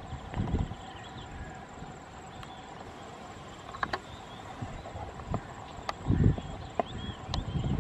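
Outdoor hillside ambience: insects and birds chirping over a steady faint hum, with a few sharp clicks. Gusts of wind buffet the microphone about half a second in and around six seconds in, building again near the end.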